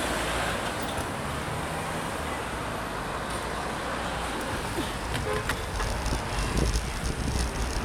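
Street traffic at a busy junction: cars, a van and a motorcycle driving past close by, heard from a bicycle. Low wind rumble on the microphone grows toward the end as the bike gets moving.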